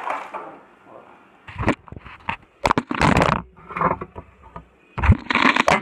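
Handling noise from the recording device being moved: knocks and thuds with rustling, in three loud bursts about a second and a half in, about three seconds in, and near the end.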